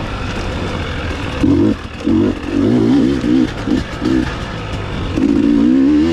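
Dirt bike engine revving in short bursts as the throttle is opened and closed, its pitch wobbling up and down, with a longer pull near the end.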